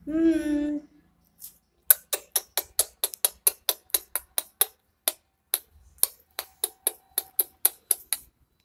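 A voice calls briefly, then a rapid, regular run of sharp clicks, about four a second, goes on for about six seconds: a person clicking to get a puppy's attention.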